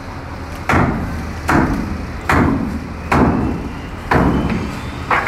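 Six heavy wooden knocks, about one every 0.8 s, as the timber bracing holding the motorcycles is struck and broken loose inside a steel shipping container.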